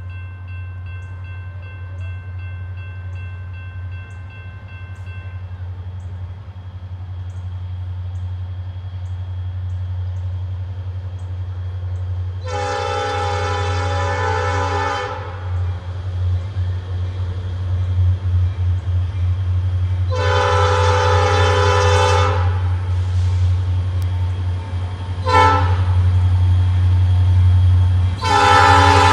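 Norfolk Southern diesel locomotive approaching, its horn sounding the grade-crossing pattern: two long blasts, a short one, and a long one starting near the end. A steady low engine rumble runs underneath and grows louder.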